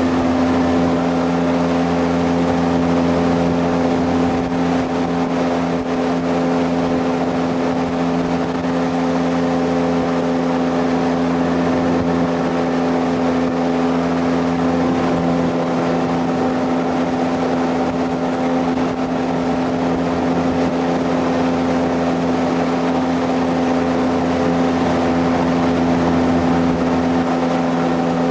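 Jet boat engine running steadily under way, holding one even pitch and level.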